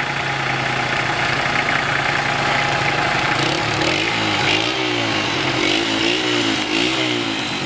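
Motorcycle engine idling steadily, then revved up and down several times from about halfway through.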